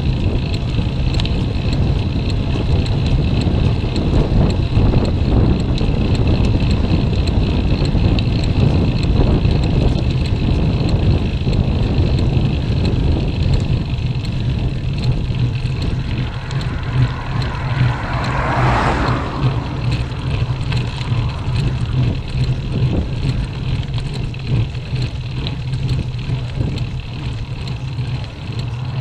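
Steady low rumble of wind and road vibration picked up by a bicycle-mounted camera while riding, with a brief swelling sound about two-thirds of the way through.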